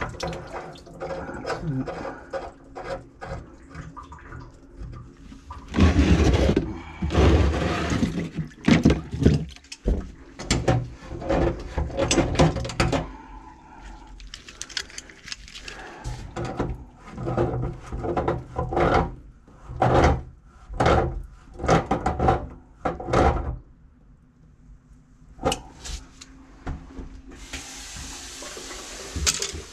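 Water and greasy sludge splashing and slopping into a bucket under a kitchen sink drain, in uneven bursts. The drain is being cleared of a grease clog.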